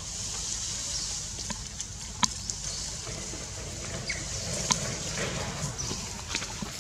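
Bamboo leaves rustling and stems clicking and snapping as a baby monkey climbs through them, with two sharper snaps, about two and four and a half seconds in, over a steady high hiss.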